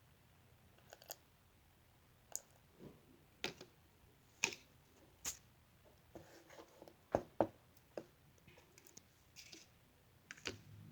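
Irregular soft clicks and taps with gaps between them, the two sharpest close together about seven seconds in: a mixing tool knocking against a bowl while slime ingredients are mixed.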